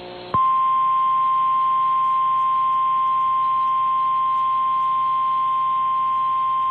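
Emergency Alert System attention tone relayed over a TV broadcast: a single steady 1050 Hz weather-alert tone sounding continuously, heralding a severe thunderstorm warning. It comes in sharply about a third of a second in, cutting off a short burst of hiss.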